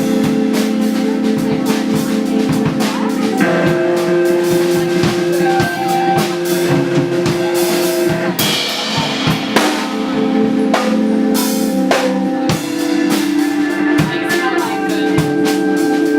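Live band music: a drum kit keeping a steady beat, with snare and bass drum hits, under long held chords that change every few seconds.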